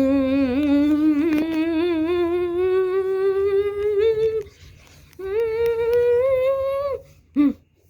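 A person's voice humming two long held notes, each sliding slowly upward in pitch: the first lasts about four seconds, the second about two seconds after a brief pause. A short vocal sound follows near the end.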